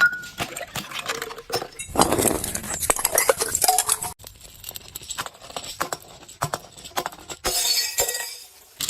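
Broken glass being crushed: a run of sharp crunches and clinks, densest about two to four seconds in and again near the end.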